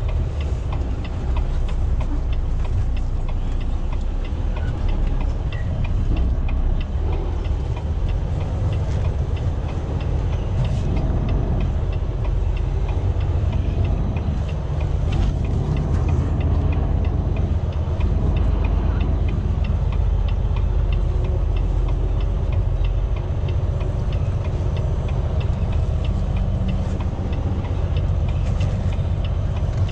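Semi truck's diesel engine running steadily at low revs as the tractor-trailer is backed up.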